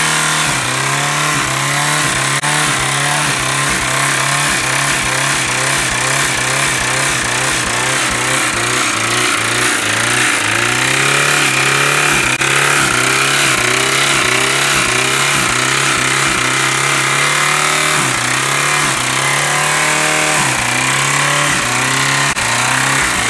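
A vehicle engine running loudly, its pitch rising and falling over and over, about once or twice a second.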